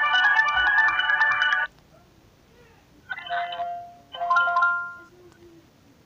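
FinePower SR245 mobile phone playing built-in ringtone previews through its small speaker. An electronic melody with a fast ticking beat cuts off suddenly under two seconds in, followed by two short snatches of electronic tones about three and four seconds in.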